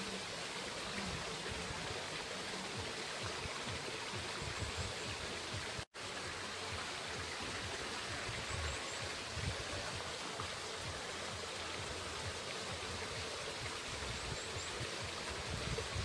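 Water running and splashing steadily at a small wooden water wheel. It cuts out for an instant about six seconds in.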